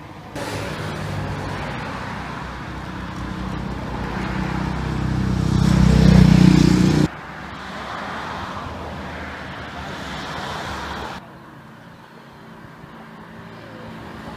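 A motor vehicle on a nearby road, its engine growing steadily louder as it approaches and peaking about six seconds in, when the sound cuts off suddenly; fainter steady road traffic noise follows.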